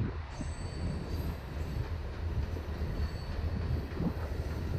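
Freight train of container wagons rolling past: a steady low rumble of the wagons on the rails, with faint high squeals from the wheels now and then.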